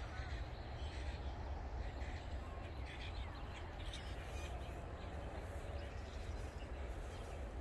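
Faint, scattered bird calls over a steady low rumble.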